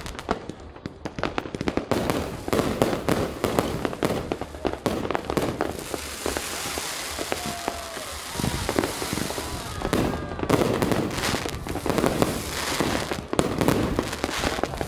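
Fireworks display: shells bursting in rapid overlapping bangs, with crackling throughout.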